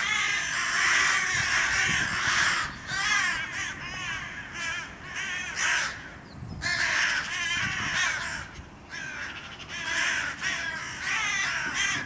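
Crow cawing harshly in a near-continuous run of calls, with short breaks, while held by and fighting off an attacking goshawk.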